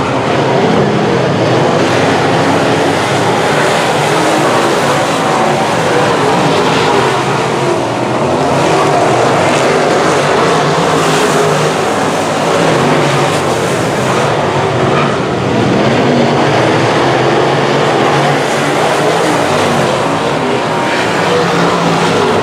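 A field of semi late model race cars running laps under race power, the loud engine noise steady and continuous with small swells as cars go past.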